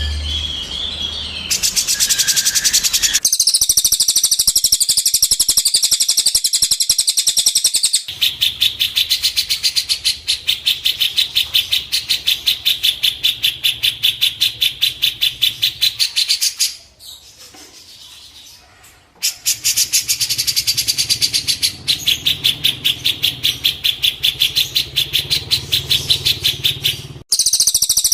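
A songbird's fast, even, machine-like run of chirping pulses, kept up for long stretches. It pauses briefly a few times and for about two seconds in the middle. It is a looped masteran recording of the kind used to teach caged songbirds their song.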